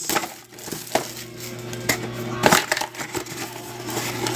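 Trading cards and packs being handled: scattered sharp clicks and crackles, the loudest about two and a half seconds in, over a steady low hum.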